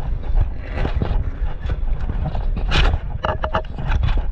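Boots of a firefighter in turnout gear walking briskly on asphalt, with carried tools and hose jostling, over a low rumble of rubbing and wind on a body-worn camera. A quick run of clicks comes about three seconds in.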